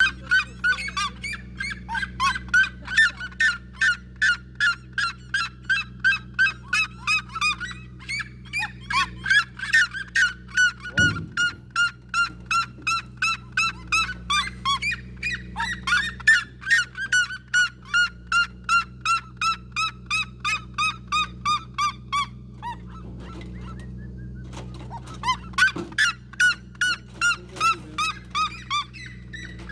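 A bird calling over and over in a rapid, even run of harsh, honking notes, about three a second, pausing once for a couple of seconds before carrying on. A steady low hum lies underneath, with a single thump about eleven seconds in.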